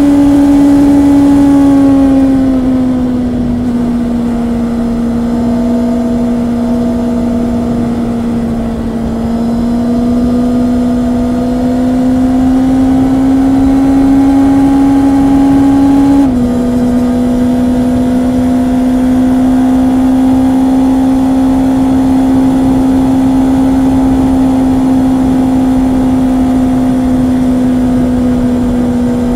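Honda CB650R inline-four engine running under way at steady road speed. Its pitch eases down a couple of seconds in, then climbs slowly. About 16 seconds in the pitch drops suddenly, as at an upshift, and then holds steady.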